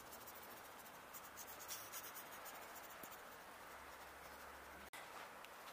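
Near silence: a faint steady hiss of room tone with a few light ticks. The sound drops out completely for an instant about five seconds in.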